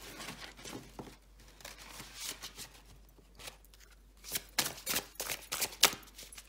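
A deck of oracle cards being shuffled by hand: soft sliding and rustling of the cards at first, then from about four seconds in a quick run of sharp card snaps and slaps.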